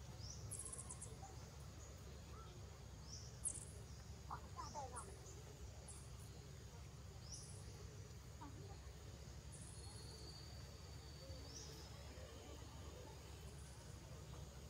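Faint outdoor ambience: short high chirps repeating every second or two over a low steady hum, with a brief squeaky call about four seconds in.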